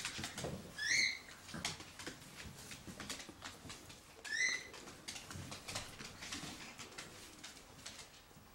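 Chinese crested puppies playing: two short high yips, about a second in and again about four and a half seconds in, over light patter and clicks of paws on a wooden floor.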